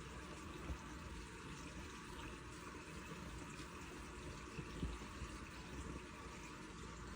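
Washing machine running with water, a steady wash of liquid sound with a few soft knocks, the drum overloaded with detergent.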